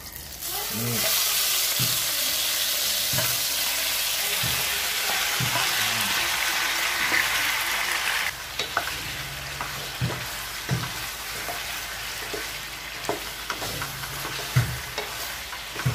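Sauce-wet braised pork belly and chicken pieces dropped into hot oil in a wok start sizzling loudly about a second in: the pan-frying stage of adobong tuyo. After about eight seconds the sizzle eases, and a wooden spatula stirs the meat, knocking now and then against the pan.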